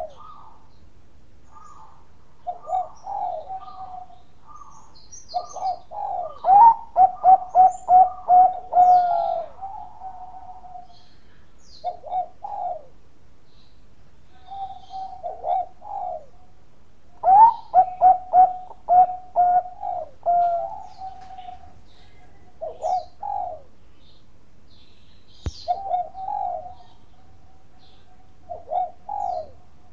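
A zebra dove (perkutut) is cooing. Short coo phrases repeat throughout, and two long, loud bouts come about six and about seventeen seconds in. Each bout is a quick run of clipped notes that ends in a drawn-out coo.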